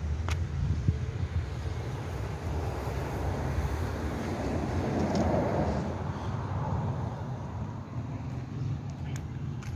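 Wind rumbling on a handheld microphone over outdoor street ambience, with a broad swell of noise that rises and fades about five seconds in and a few faint clicks.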